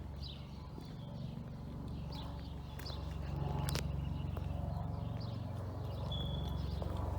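Footsteps of people walking, with small birds chirping now and then over a steady low rumble.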